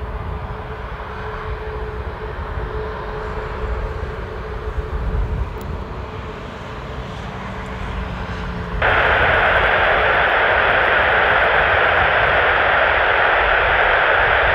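Airbus A320neo jet engines running at low power while the airliner rolls on the ground: a steady hum over a low rumble. About nine seconds in, a much louder steady hiss cuts in abruptly.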